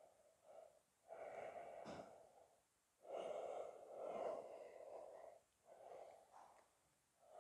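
A person's slow, audible breathing in and out through the nose while holding a deep seated stretch: a few long breaths with short pauses between them, and a faint click about two seconds in.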